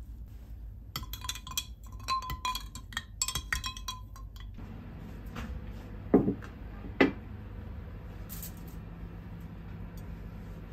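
Ice cubes and a spoon clinking rapidly against a tall drinking glass as an iced coffee latte is stirred for a few seconds. A little later there are two loud knocks.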